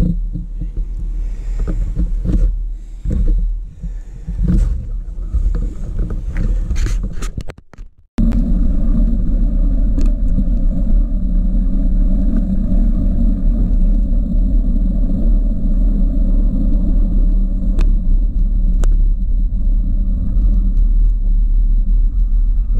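Wind buffeting a GoPro's microphone on a moving bicycle. For the first eight seconds it comes in uneven gusts and knocks. After a brief dropout it becomes a steady low rumble.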